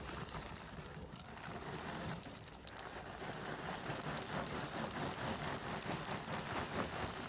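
River rock being poured or shovelled into a fabric-lined drain hole: a dense clatter of many small stones, getting busier and louder from about three seconds in.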